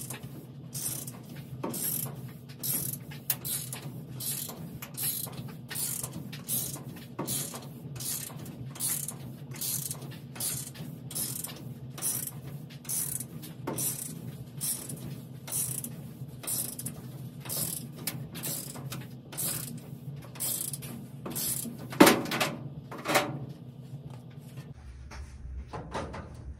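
Hand ratchet clicking back and forth in steady strokes, about two a second. Two sharp knocks come near the end, just before the ratcheting stops.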